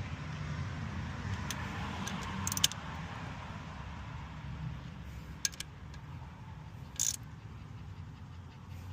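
A steady low rumble, like a vehicle running, with a handful of sharp metallic clicks and clinks scattered through, from working the hand pump on the gear lube bottle while filling the sterndrive.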